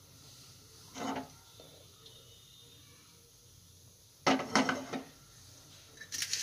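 A metal frying pan knocking and clattering on a gas stove's grate: one short clunk about a second in, a quick cluster of knocks around four to five seconds, and a louder clatter near the end.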